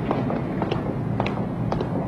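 Hard-soled footsteps on pavement, about two a second, over a steady hum of street traffic.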